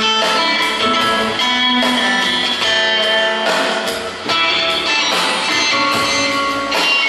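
Live rock band playing an instrumental passage: electric guitar over upright bass and drums, with cymbals striking throughout.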